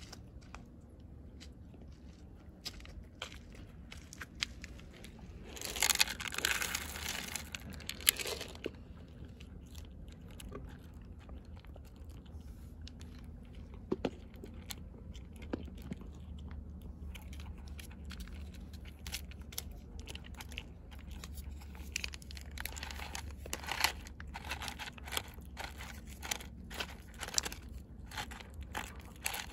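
A cat crunching dry kibble from a plastic bowl: many small, irregular crunches and bites. About six seconds in there is a louder rustle lasting a couple of seconds. Near the end a plastic wet-food pouch crinkles as it is squeezed out over the bowl.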